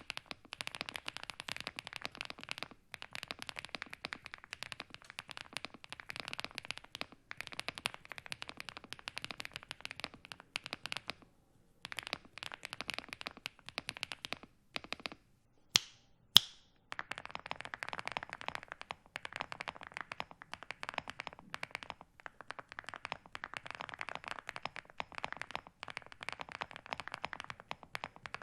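Fast continuous typing on an MCHOSE GX87 mechanical keyboard, a dense stream of key clacks. First with Geonworks Raw keycaps, then, after a pause of about two seconds about halfway through that holds two sharp clicks, with Cerakeys ceramic keycaps.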